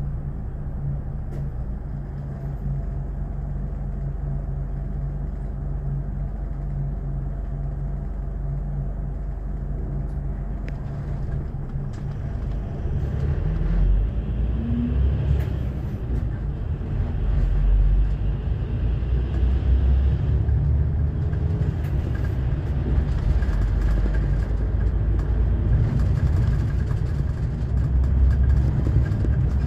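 Highway coach's diesel engine heard from inside the cabin: a steady hum while the coach waits, then, about twelve seconds in, it pulls away and accelerates, the engine and road noise growing louder.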